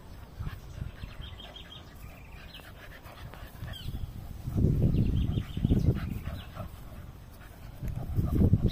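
Two cocker spaniel puppies play-fighting, with low growls and snuffles that come in louder bursts about halfway through and again near the end.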